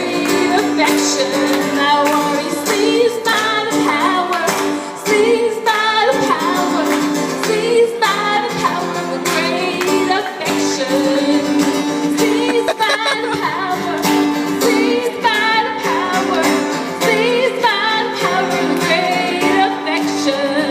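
A worship song sung with instrumental accompaniment: a sung melody over steady held backing chords.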